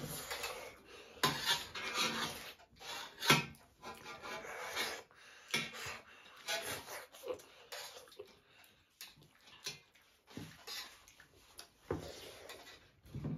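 Spoons clinking and scraping against metal plates as several people eat, in scattered short clicks and scrapes.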